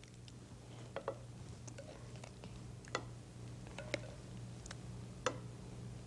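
A spoon clicking and scraping against a clear mixing bowl as scrambled eggs are scooped out onto a plate: about half a dozen light, scattered clicks, over a steady low hum.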